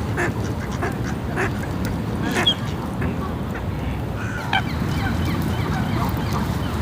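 A flock of Canada geese calling with short honks and clucks scattered throughout. The loudest calls come about two and a half seconds in and again a little after four seconds, over a steady low rushing background.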